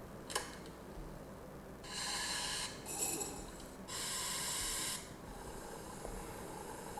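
Espresso machine sound effect played back: three short bursts of hissing, each about a second long, starting about two seconds in, which to the listener sounds like a blender. A single click comes shortly before.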